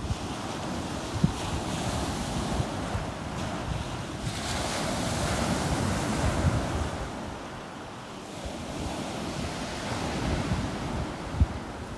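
Stormy sea surf: waves breaking and washing up the shore, with wind buffeting the microphone. A wave swells into a louder rush about four seconds in and fades away by about eight seconds.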